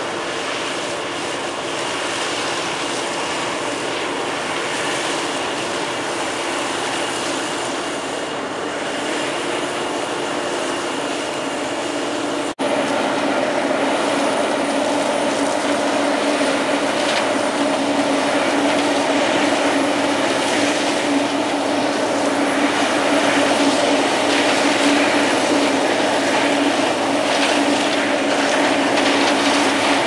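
CAT Lexion combine harvesting corn: its engine and threshing machinery give a steady drone with a few held hums. About twelve seconds in the sound jumps louder, with stronger hums, as the machine is heard up close.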